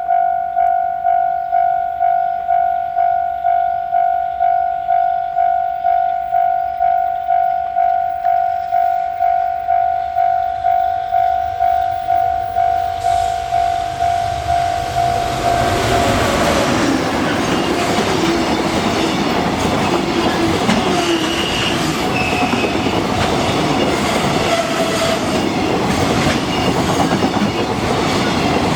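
Japanese level-crossing warning bell ringing in an even electronic pulse of about two strikes a second. About halfway through, a JR Freight EF210 electric locomotive and its container wagons arrive and pass, and their loud, continuous wheel-on-rail noise covers the bell.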